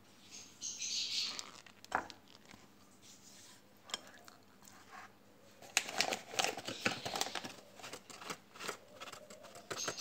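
Marinated fish slices being rubbed and turned in corn flour on a plate: soft rustling scrapes with small clicks of the fish against the plate, busiest from about six seconds in.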